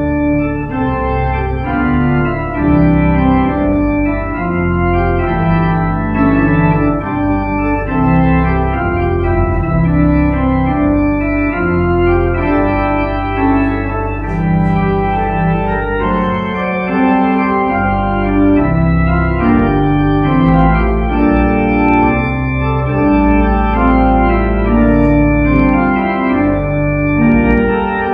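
Church organ playing slow, sustained chords over a steady bass, the chords changing every second or two.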